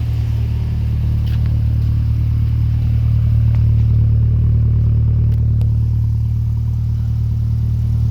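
Van engine idling steadily through a new small MagnaFlow muffler: an even, low exhaust note.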